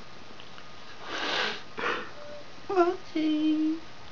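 Angry tabby cat hissing twice, then giving a short wavering yowl and a steadier low yowl.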